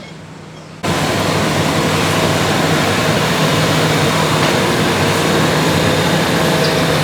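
Loud, steady mechanical noise with a constant hum, cutting in abruptly just under a second in.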